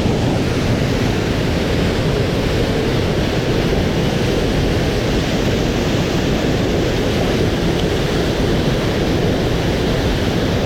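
A mountain stream swollen with rainwater, rushing steadily.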